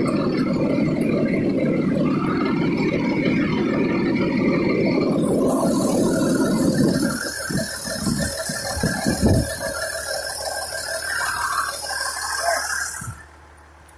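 Fire engine running close by, a dense mechanical rattle. About five seconds in a high hiss joins it, with a few dull thumps, and the sound cuts off suddenly near the end.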